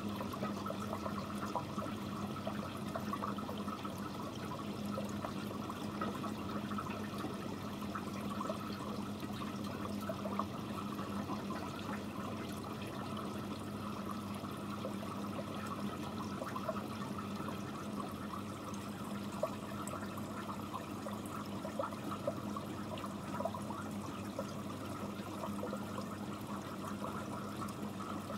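Aquarium sponge filter bubbling and trickling steadily, with many small crackling pops of bursting bubbles over a steady low hum.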